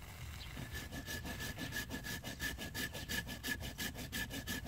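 Hand saw cutting through a dormant fig trunk in fast, even strokes, about five a second, starting about half a second in. A thin high steady note runs along with the strokes.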